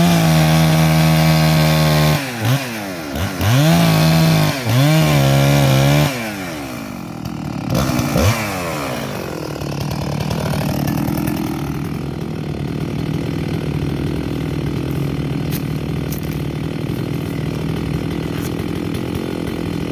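Two-stroke chainsaw at full throttle in three bursts, cutting wood. About six seconds in the throttle is released, and the saw winds down and then idles steadily.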